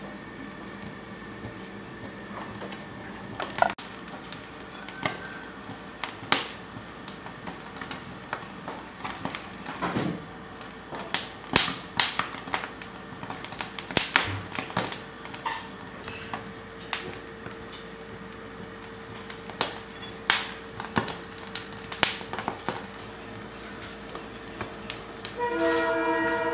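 Ear of corn roasting directly over a gas stove burner: the flame hisses steadily while the kernels give sharp pops and crackles as they char, scattered at first and thickest in the middle. About a second before the end a sustained horn-like tone with several pitches comes in.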